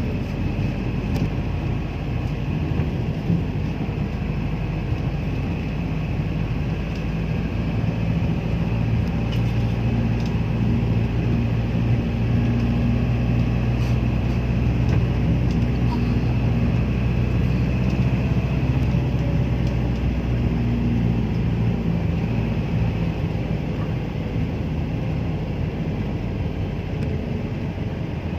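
A motor vehicle being driven: a steady low engine hum with road noise, growing louder through the middle and easing off near the end.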